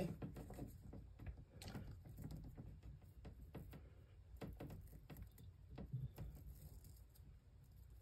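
Faint clicks and rustling of fingers handling a freshly stripped Cat8 cable and picking loose its braided metal mesh shield, with a sharper click right at the start.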